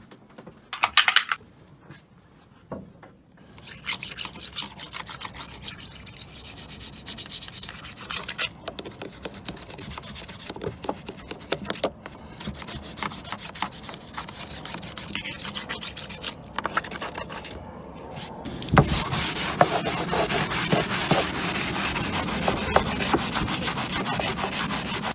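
Sanding: abrasive rubbed rapidly and repeatedly over a surface in several spells with short pauses, the last and loudest spell starting about three quarters of the way through.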